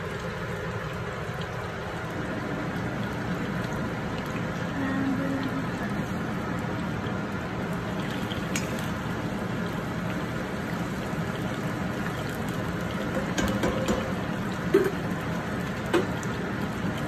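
Potato fries sizzling steadily in hot oil in a wok-like pan on a gas burner, with the fries stirred by a spoon partway through and a few sharp clicks of the spoon against the pan near the end.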